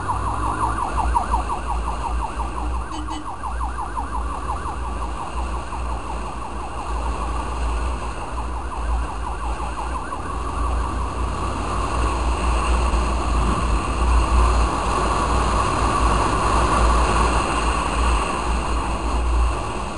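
An emergency vehicle's siren on a fast yelp, its pitch rising and falling several times a second, fading out over the first few seconds. Under it runs a steady low rumble of wind and road noise from moving through traffic.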